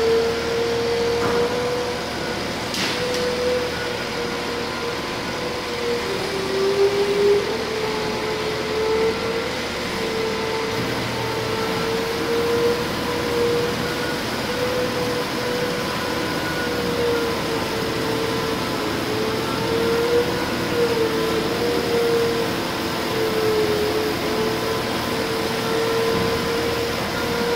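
Large horizontal honing machine running while it hones the bore of a 20-inch hydraulic cylinder. A steady machine whine wavers slightly in pitch over an even mechanical hum.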